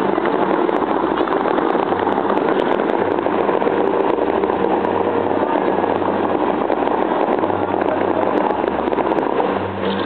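Water jets of the Bellagio fountains spraying and falling back into the lake: a loud, steady rushing roar, with low notes underneath that shift every second or so.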